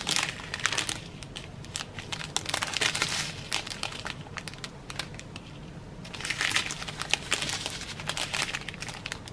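Small clear plastic bags of round diamond-painting drills crinkling as they are handled, with the drills shifting inside. The crinkling comes in bouts: at the start, around three seconds in, and again from about six to eight and a half seconds.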